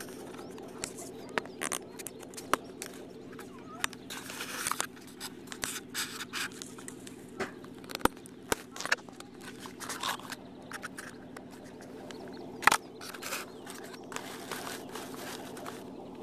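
Irregular clicks, taps and short scrapes of the model airplane and its onboard camera being handled, over a steady low hum. One sharp click about three-quarters of the way through is the loudest.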